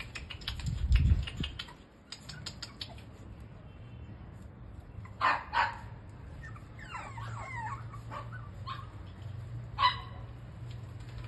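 Cavalier King Charles Spaniel puppies yapping: two short high yaps about five seconds in, wavering whiny sounds a little later, and another yap near the end. A low thump comes about a second in.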